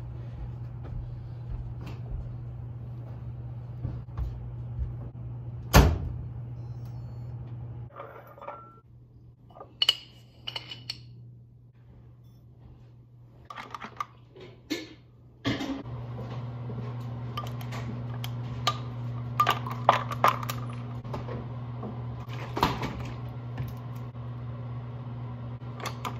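Laundry being stuffed into a front-loading washing machine over a steady low hum, with a sharp knock about six seconds in. A few short electronic beeps follow. Then a glass straw clinks repeatedly against ice in a glass of iced coffee.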